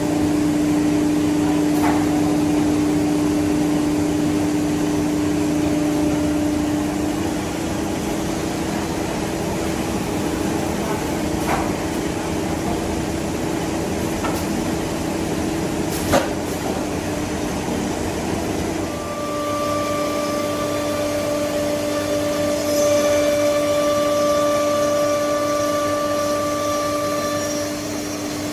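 Four-head CNC nesting router running, a steady machine whine over a rushing hum, with a few sharp clicks. About two-thirds of the way through a second, higher whine joins in.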